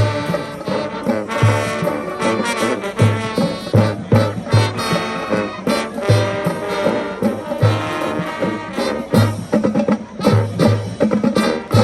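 Marching band playing, with brass carrying the melody over a steady bass drum beat.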